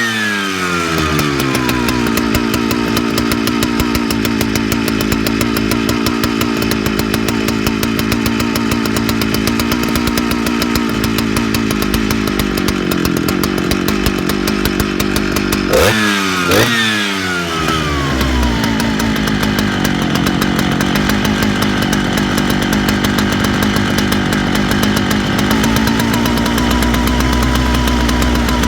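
Large vintage Jonsered two-stroke chainsaw idling, with a rev dropping back to idle at the start and two quick throttle blips about sixteen seconds in. The owner hears it coming in and out and suspects it is not getting a steady stream of fuel.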